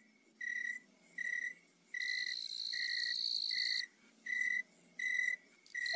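Crickets chirping: a short high chirp repeats evenly, a little more than once a second, and a steadier, higher trill joins it for about two seconds in the middle.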